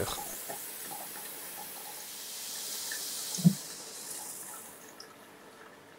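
Altered:Nozzle Dual Flow Pro tap nozzle running in mist mode: a fine water spray gives a soft, even high hiss that fades away after about four seconds. A single short thump about three and a half seconds in.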